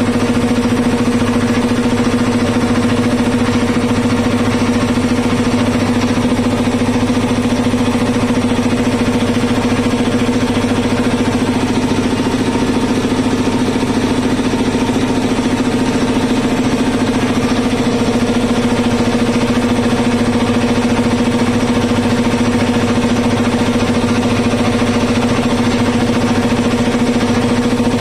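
A freshly serviced 3 HP belt-driven reciprocating air compressor running steadily under load, pumping up its tank before the pressure switch cuts it out. A loud, even mechanical hum with no change through the whole stretch.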